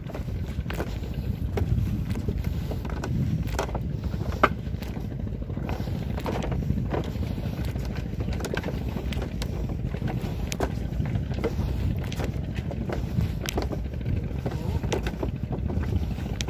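Footsteps on a bamboo-slat walkway: irregular sharp knocks and creaks of the bamboo underfoot, one especially sharp about four and a half seconds in, over a steady low rumble.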